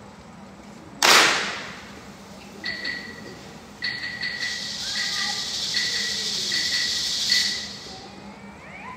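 A band clapping once in unison, then rubbing their palms rapidly back and forth, a rushing hiss that runs for about four seconds: the hand-friction 'energy ball' effect written into the piece. A high ringing ping is struck several times over the rubbing.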